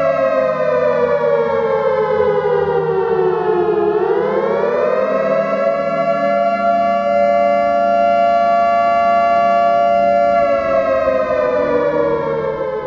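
Civil defense siren wailing: the pitch slides slowly down, sweeps back up and holds steady, then falls again near the end.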